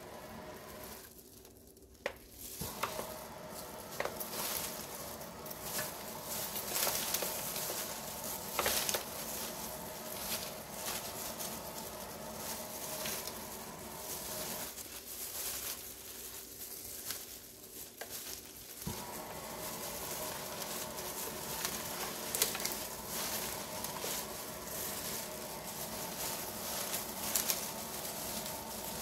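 Clear plastic food-prep gloves and a disposable aluminium foil pan crinkling and rustling as hands toss and squeeze shredded rice paper salad, a dense run of small crackles. It drops away briefly about two seconds in and eases off again for a few seconds past the middle.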